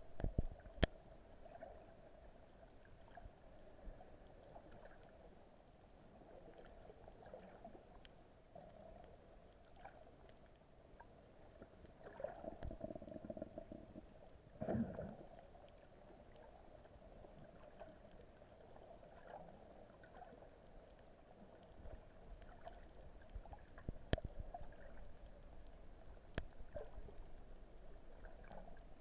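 Muffled underwater sound through an action camera's waterproof housing: a faint steady hum of water noise, with louder swishes of water about 12 and 15 seconds in and a few sharp clicks.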